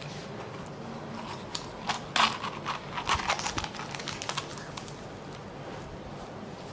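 Small plastic bottle of hing (asafoetida) being handled and its cap opened: scattered clicks and crinkling for a few seconds, loudest about two seconds in.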